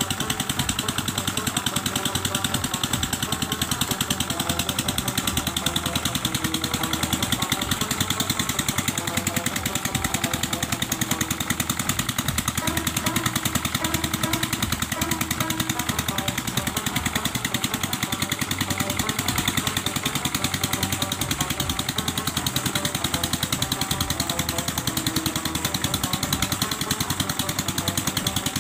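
Petter-type single-cylinder diesel engine running steadily under load, driving a coupled tubewell pump, with a rapid, even beat of firing strokes. Water gushes from the pump's outlet pipe into the pit beneath it.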